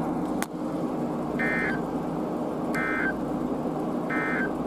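Emergency Alert System digital data bursts: three short, identical warbling bursts about 1.4 seconds apart, the end-of-message code that closes a weather warning broadcast. A click about half a second in, over a steady background hiss and hum.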